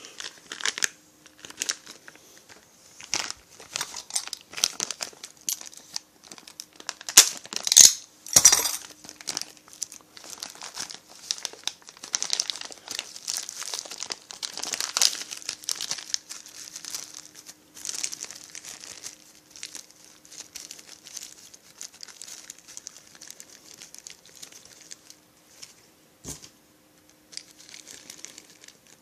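Plastic parts bags crinkling and rustling as small chainsaw parts are unwrapped and handled, with a few sharp clicks and knocks about seven to eight seconds in.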